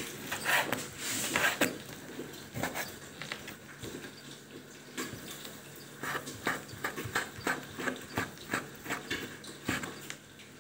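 Chef's knife chopping pork into small cubes on a wooden cutting board: the blade knocks on the board, a few strokes at first, then from about six seconds in a fast, even run of about three knocks a second.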